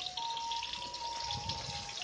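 Ground chilli and shallot spice paste frying in hot oil in a clay pot: a steady sizzle with fine crackling as the wet paste meets the oil.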